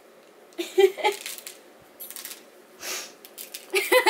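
People giggling in short, breathy bursts, loudest about a second in and again near the end.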